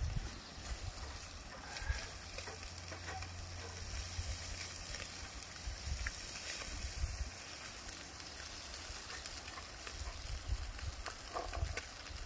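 Trout sizzling on the grate of a small charcoal grill, with a few faint clicks of metal tongs and a knife as the fish is lifted off. A low rumble runs underneath.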